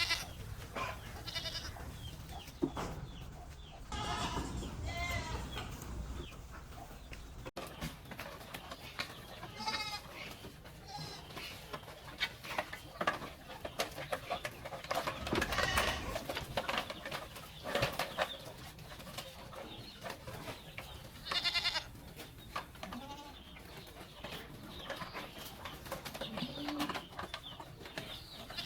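Goats bleating on and off, several short quavering calls, one of the loudest about two-thirds of the way through, with scattered clicks and rustling between the calls.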